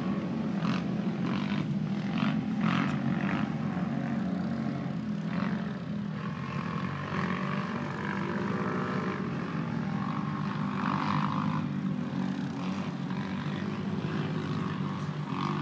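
Steady hum of a camera drone's propellers, with the engines of off-road race vehicles running underneath and shifting in pitch now and then.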